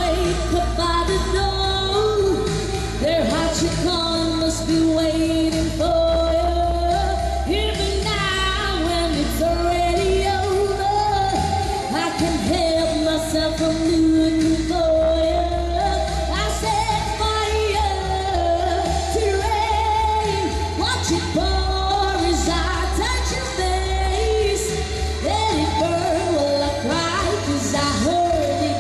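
A singer performing a pop song over instrumental backing, with the melody held and bent across long notes above a steady bass.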